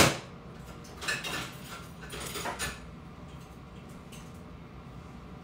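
Kitchen cookware clatter: one sharp clack like a utensil striking a pot, then a few softer knocks and rattles over the next couple of seconds, then only low room hum.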